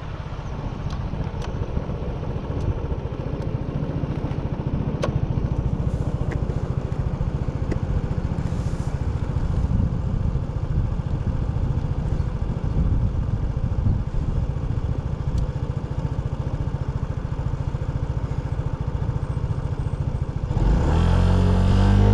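Motor vehicle engine running steadily on the move, with a low pulsing rumble and a few light clicks. It gets suddenly louder near the end, where a clear rising engine note comes in.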